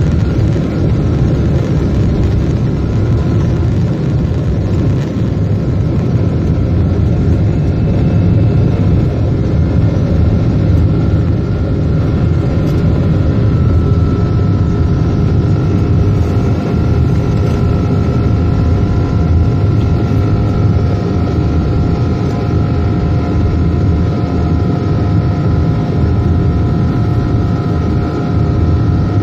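Boeing 777-300ER's GE90 turbofan engines at takeoff thrust, heard from inside the cabin through the takeoff run and into the climb. A loud, steady rumble carries a high fan whine, and the whine grows stronger about halfway through.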